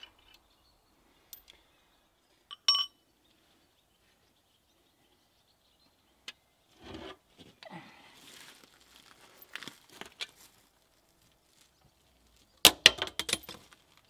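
Metal clinks and handling noises as the tractor's clutch parts and tools are worked by hand. There is a single sharp ringing clink about two and a half seconds in, scraping and rustling through the middle, and a quick run of loud metal clinks near the end.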